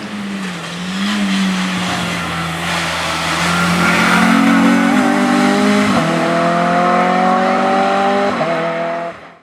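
Racing car engine accelerating hard, its pitch climbing through the gears with a sharp drop at an upshift about six seconds in, then climbing again before the sound cuts off abruptly near the end.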